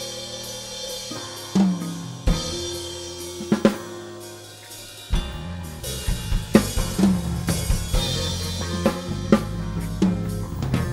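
Acoustic drum kit played along to a backing track: a few single accented hits over held backing-track chords at first, then about five seconds in a full, busy groove of kick, snare and cymbals starts.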